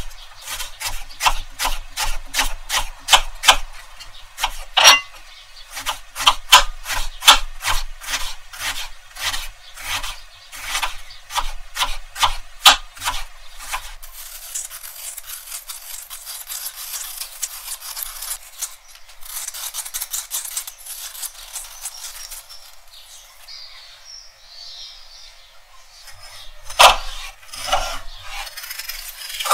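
A kitchen knife chopping onion on a wooden cutting board in rapid, even strokes, then a vegetable peeler scraping the skin off a potato. Near the end, a knife cuts through a peeled potato with one or two sharp knocks on the board.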